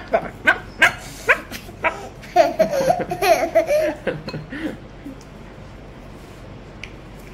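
A young child laughing in short bursts, with a run of wavering giggles about two to four seconds in, dying away by about five seconds.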